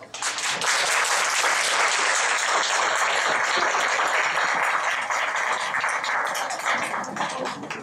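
Audience applauding: many hands clapping together, starting abruptly as the music ends, holding steady, then thinning out near the end.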